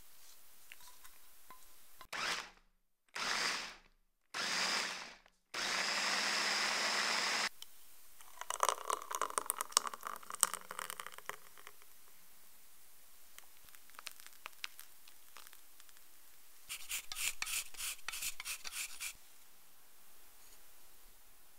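Countertop blender motor running in three short pulses, then steadily for about two seconds, blending the shake. After that comes liquid pouring into a glass with some clicks, and near the end a quick run of crisp clicks.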